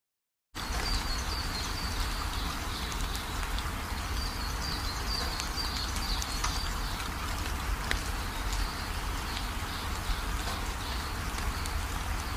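Steady background noise with a low rumble, faint repeated high chirps and scattered small clicks, starting abruptly just after a moment of dead silence.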